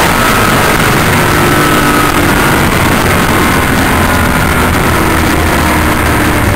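1964 Chevelle drag car's engine and wind noise, loud and steady, heard inside the cabin. The noise eases off slowly as the car slows down after crossing the finish line.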